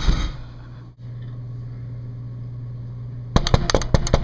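Handling noise on a handheld camera's microphone: low rumbling bumps at the start, a steady low hum in the middle, then a rapid cluster of sharp clicks and knocks near the end as the camera is fumbled against something.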